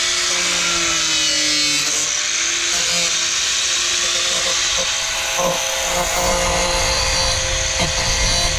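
Angle grinder cutting through an enduro motorcycle's front fender, running steadily, its whine sagging slightly about a second or two in as the disc bites. The fender is being trimmed because the new tyre rubs on it when the fork compresses.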